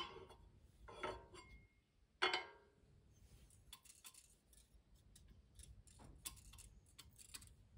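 Steel straight edge being set down and moved on a Land Rover 2.25 petrol cylinder head, giving a few sharp metallic clinks in the first couple of seconds. Faint light ticks follow as a feeler gauge blade is worked in under the straight edge to check the head for warping.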